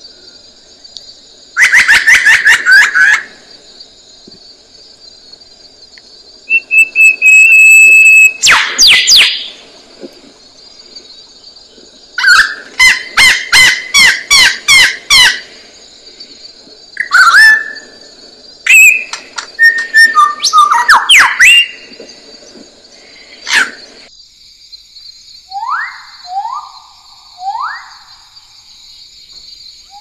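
Superb lyrebird singing its loud, varied song in bursts with pauses: whistles, a held note, rapid strings of ringing notes and falling calls, over a steady high hiss. About 24 seconds in this gives way to a bird-of-paradise's series of falling whistles, about one a second.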